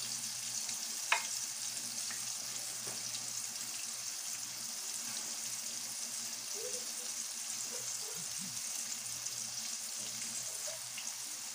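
Egg-and-cornstarch-coated pork pieces deep-frying in a pan of oil: a steady, hissing sizzle. One sharp click about a second in.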